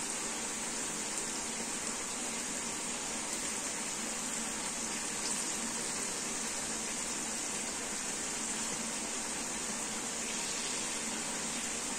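Chopped green beans deep-frying in a pan of hot oil, a steady sizzle.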